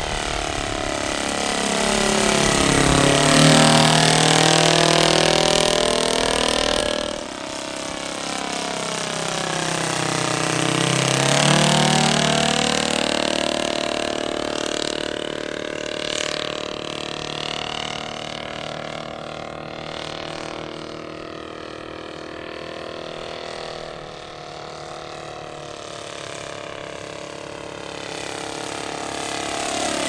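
Kolm 65 cc four-stroke engine of a large-scale radio-controlled Demoiselle model aircraft running in flight. It grows louder and its pitch drops as the plane flies past, about three seconds in and again around eleven seconds, then runs more distantly before swelling again near the end.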